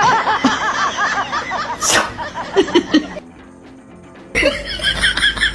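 Music mixed with laughter. It stops sharply about three seconds in, and after a short lull a different stretch of quick repeating high-pitched notes over a low hum begins.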